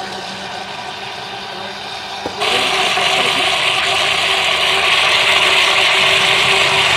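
Electric blender whirring as it blends papaya with milk, growing much louder and harsher about two and a half seconds in, then cutting off abruptly.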